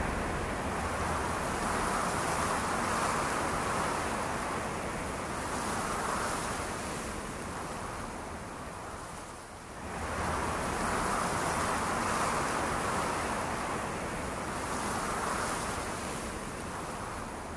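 A rushing noise that swells and ebbs over several seconds, with a brief dip about nine and a half seconds in.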